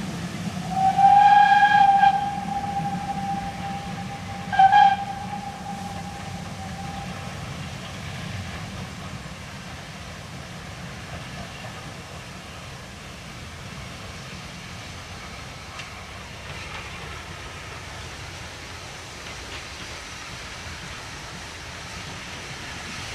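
Steam locomotive whistle blown twice by an approaching steam train: a longer blast about a second in and a short toot at about five seconds. Then the faint, steady sound of the train drawing closer.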